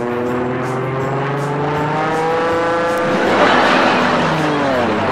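Engine sound effect: a steady hum with a slowly gliding pitch, then a loud rushing pass-by about three and a half seconds in, its pitch falling as it goes away.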